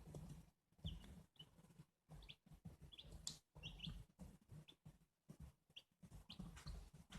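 Newly hatched chicks peeping faintly: short, high chirps scattered irregularly, about a dozen in all, over intermittent low rustling and bumping.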